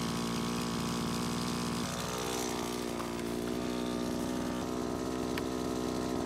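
Backpack brush cutter's small engine running steadily, with a slight change in its note about two seconds in.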